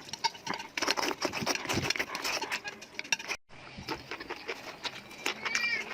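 Close-miked mukbang eating sounds: wet chewing, smacking and slurping of chewy spicy noodles, a dense run of short mouth clicks. The sound cuts out for a moment about halfway, and a brief high squeak comes near the end.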